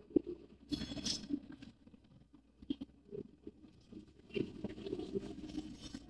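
Liquid splashing and dribbling from a plastic cup at a scooter's fuel filler onto the floorboard and concrete, with light plastic taps and clicks, loudest about a second in and again from about four seconds.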